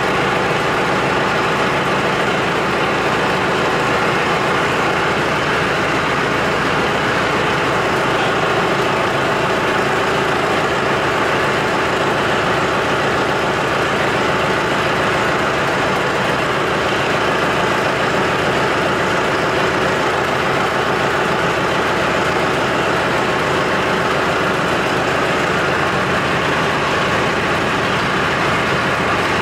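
Tractor loader engine running steadily at a constant speed while its forks lift and tilt a fiberglass truck hood.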